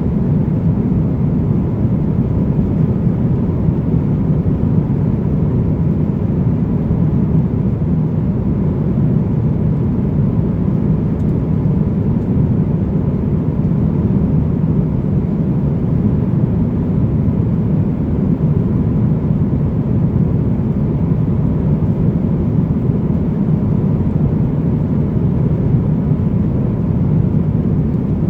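Steady rushing cabin noise of an Airbus A350-900 in flight, heard from an economy seat: airflow and engine noise with no rise or fall.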